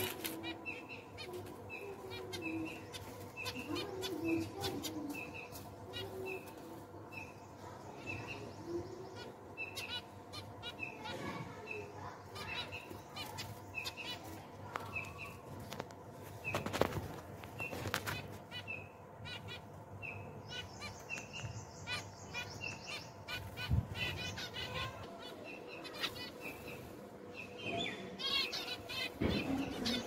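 Zebra finches chirping: short high calls repeated about twice a second, with a quick high trill a little past two-thirds of the way through.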